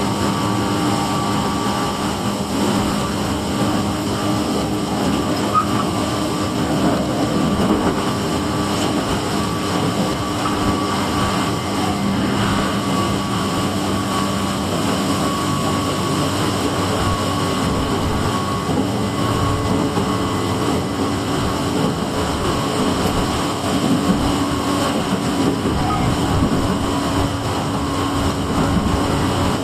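Tobu 8000 series electric train running steadily between stations: a continuous running noise with a held whine.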